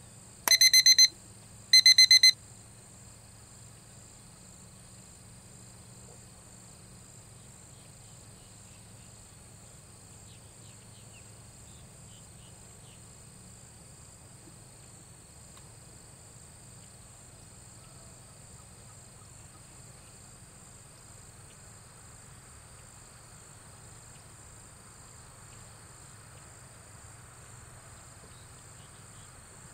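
Electronic timer beeping: two short bursts of rapid high beeps, about a second apart, near the start. Such beeps recur every 30 seconds, the cue to record the focal horse's behaviour. A faint steady high insect drone runs underneath.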